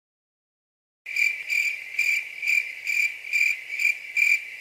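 Crickets chirping as a stock sound effect: a steady high trill that pulses about twice a second. It starts about a second in and cuts off suddenly.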